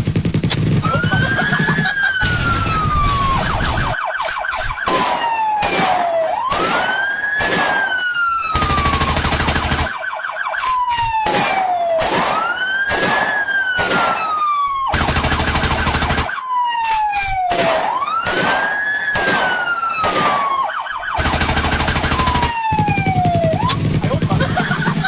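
A wailing siren that slowly rises and falls, about one cycle every six seconds, with many sharp, choppy hits over it in an edited soundtrack.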